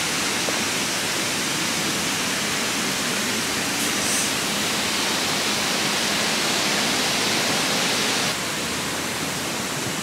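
Steady rush of water from Fukuroda Falls and the river in the gorge below, an even dense hiss that drops slightly in level about eight seconds in.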